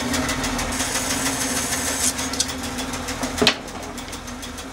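Delta band saw running and ripping through an Osage orange bow stave: a steady motor hum under the rasp of the blade in the wood. About three and a half seconds in comes a brief sharp knock, after which the cut runs quieter.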